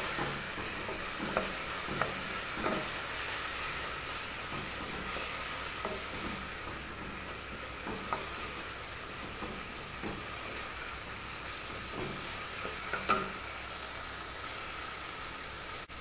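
Onion-tomato masala with turmeric and chilli powder sizzling as it is sautéed in an aluminium pressure cooker, stirred with a wooden spatula that taps and scrapes against the pot now and then. The spices are being fried until their raw smell is gone.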